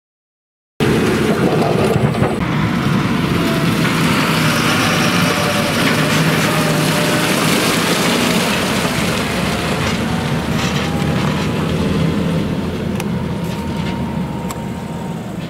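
A tractor pulling a large Fliegl Gigant trailer drives past on a gravel road, with steady engine noise and tyre and trailer rumble. It starts suddenly about a second in and fades as the rig moves away near the end.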